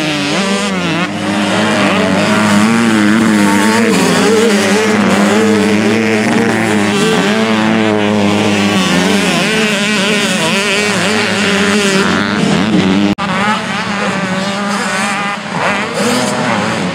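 Several small-displacement motocross bike engines revving hard and shifting as riders race around the track, their pitches overlapping and constantly rising and falling. A brief dropout about thirteen seconds in.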